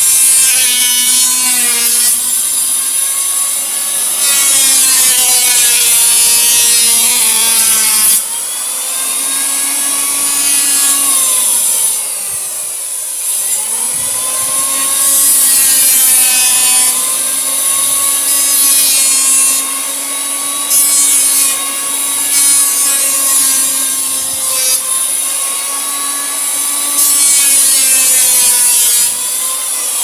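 Electric hand planer shaving wood in a series of long passes. Its motor note dips and recovers as the blades bite, over a hiss of cutting that rises and falls with each pass.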